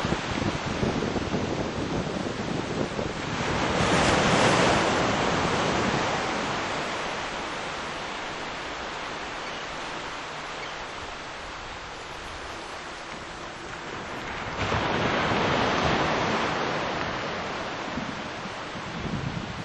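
Wind buffeting the camcorder microphone with a steady rushing hiss. It swells louder twice, about four seconds in and again around fifteen seconds in.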